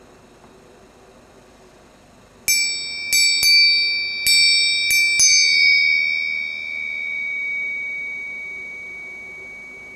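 Small bell cast in bell bronze (80% copper, 20% tin) struck six times in quick succession, then ringing on with one clear high tone and several higher overtones, slowly fading.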